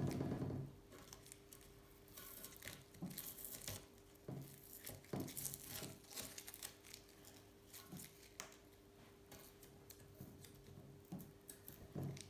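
Masking tape and paper being handled: scattered short tearing and crinkling rustles with a few soft knocks.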